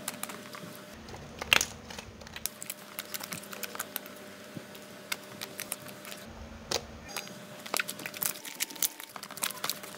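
Glossy slime being squeezed and pressed by hand, giving a scattered run of small wet clicks and pops, one louder pop about a second and a half in.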